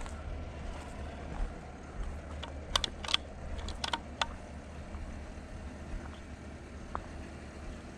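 Footsteps on a gravel road: a handful of sharp crunches and clicks about three to four seconds in, over a steady low rumble.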